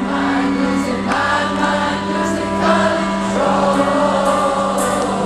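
Rock band playing live with sung vocals and sustained chords, the voices layered like a choir.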